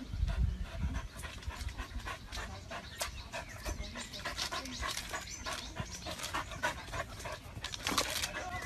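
A dog panting in quick, excited breaths.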